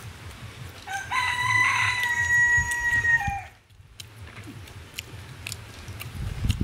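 A rooster crowing once: a single long call of about two and a half seconds that rises briefly, holds one pitch, then drops away at the end.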